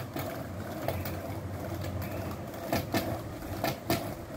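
Skateboard wheels rolling back and forth on ceramic floor tiles under a foot, a steady rumble with a few sharp clicks in the second half.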